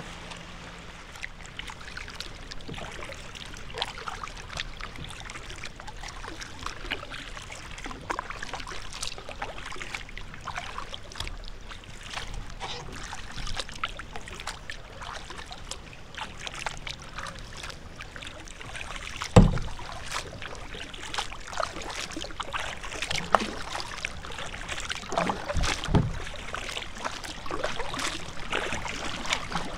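Small waves lapping and splashing against a kayak's hull as it drifts on choppy lake water. A few louder knocks and splashes come through, the loudest about two-thirds of the way in.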